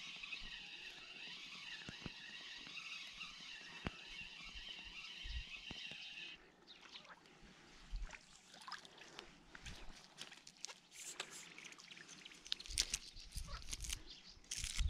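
Spinning reel whirring steadily as line is wound in, stopping suddenly about six seconds in. Then a hooked perch splashes at the surface and is drawn through the weeds to the bank, with scattered splashes and rustles as it is landed by hand.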